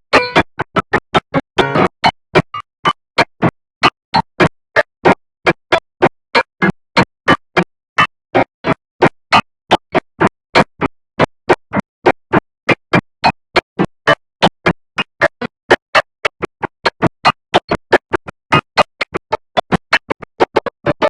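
Dark electronic ringtone music: short chopped synth stabs, about four a second, with silence between each.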